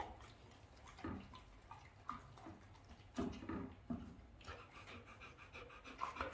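Rottweilers panting, regular and quick from about halfway through, with a few short wet smacks and clicks of a dog chewing a piece of honeydew melon in the first half.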